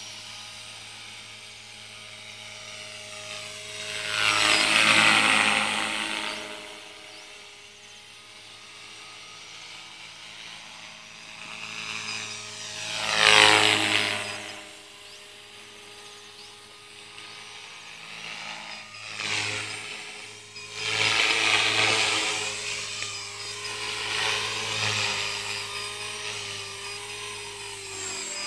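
T-Rex 450 clone electric RC helicopter flying: a steady whine from its motor and rotor, swelling loud three times as it passes close, the pitch sweeping down as it goes by.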